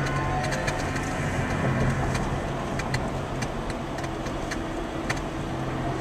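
Car driving along a city street, heard from inside the cabin: a steady engine and road-noise hum with scattered light clicks and ticks.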